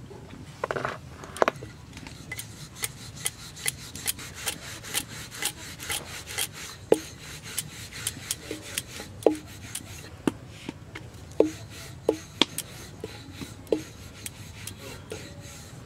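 Wooden rolling pin rolling out a thin sheet of paratha dough on a flour-dusted stone slab: a rubbing, scraping sound as it goes back and forth, with many short sharp clicks and knocks, quick and frequent at first and sparser later.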